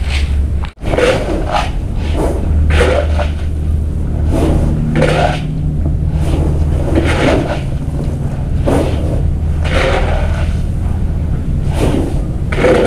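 Dry corn kernels scooped with a plastic scoop and poured into a woven sack, a rattling rush repeating about once a second, over a steady low hum.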